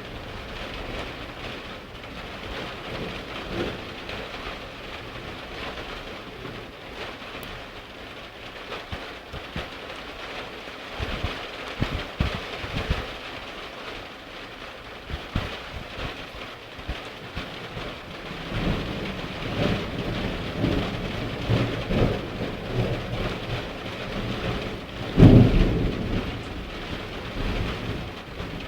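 Heavy thunderstorm: rain falling steadily while thunder rolls several times, with the loudest rumble near the end.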